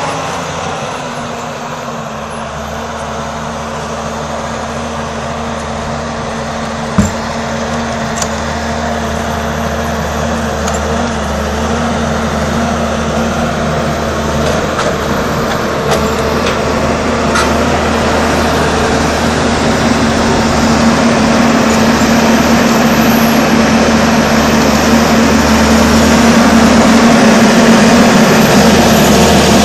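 Engine of an Ekolog wheeled forestry machine running steadily, growing louder as the machine comes closer. One sharp knock about seven seconds in.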